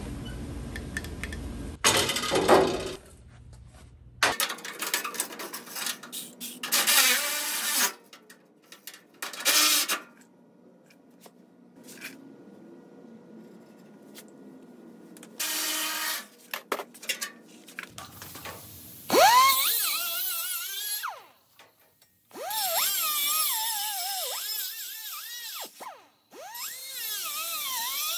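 Handheld cut-off wheel cutting steel: several runs in the second half, each starting with a rising whine that then wavers up and down as the wheel bites into the metal. Shorter, irregular noisy bursts come before it.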